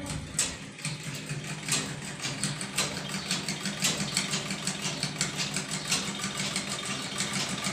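A small motor starts up and runs steadily, with a quick regular clicking over its hum.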